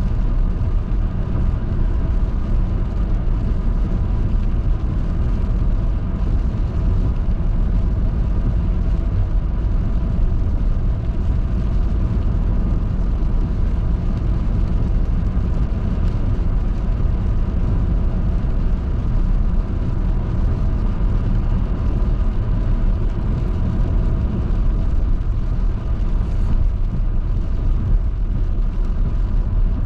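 Vehicle driving on a highway: steady low road and engine rumble, with a faint steady whine running through it.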